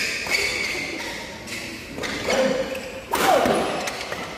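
Badminton doubles rally: sharp racket strikes on the shuttlecock and players' shoes on the court mat, with the loudest hit about three seconds in.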